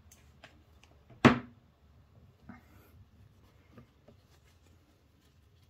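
A single sharp knock about a second in, followed by a few faint clicks and light handling noise as a crocheted yarn dress is picked up and worked onto a doll.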